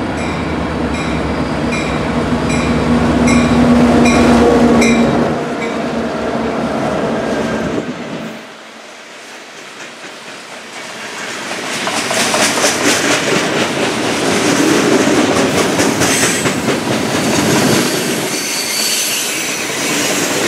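Freight train passing close by. A bell rings about twice a second while the diesel locomotives go by loudly in the first few seconds. After a quieter moment, the cars roll past with a steady clickety-clack over the rail joints and some brief high wheel squeal near the end.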